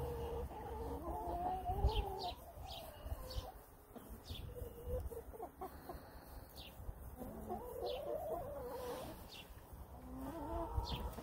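Domestic hens clucking in low, wavering calls, coming in several spells with quieter gaps between.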